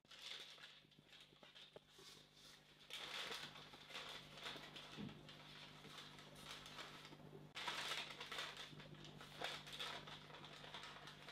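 Baking paper rustling and crinkling as hands wrap it around a soft roll of yeast dough, in uneven bursts that are loudest about three seconds in and again near eight seconds.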